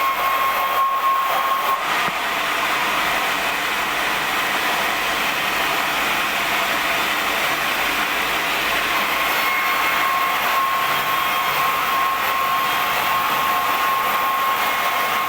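Band sawmill running, a steady loud rushing noise with a high whine that fades about two seconds in and comes back around nine seconds.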